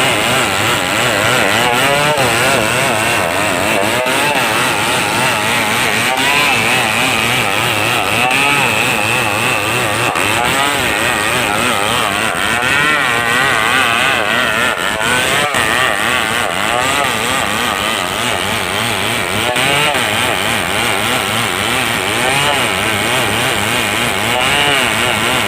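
Stihl 070 two-stroke chainsaw running at high revs as it saws through timber, its engine pitch wavering up and down throughout.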